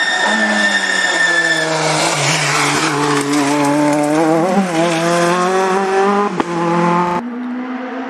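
Rally car engine revving hard as the car passes close through a tight bend on a stage, its pitch falling off the throttle and then climbing again as it accelerates away. About seven seconds in the sound cuts off suddenly to a quieter, steadier engine further off.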